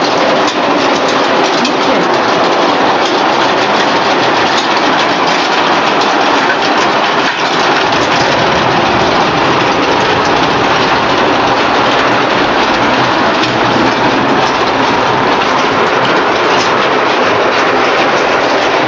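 Stainless-steel french fry processing line running: electric motors and mesh-belt conveyors make a loud, steady mechanical clatter sprinkled with small clicks.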